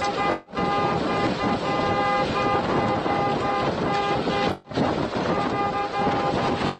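A car horn honking in quick repeated blasts over a steady rush of wind and vehicle noise. The sound drops out briefly twice.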